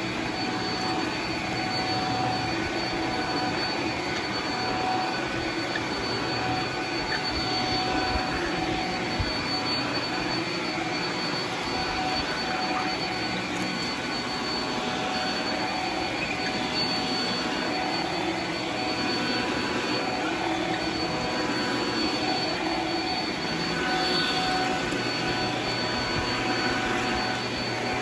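Shark Flex stick vacuum running steadily, its motorized floor head pushed back and forth over rugs and bare concrete. A thin high whine sits over the motor's airy rush.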